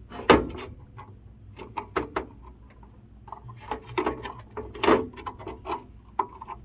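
A small plastic wire plug being worked onto a treadmill motherboard's pin header by hand: irregular light clicks, taps and rubbing, the sharpest about a third of a second in and again near five seconds.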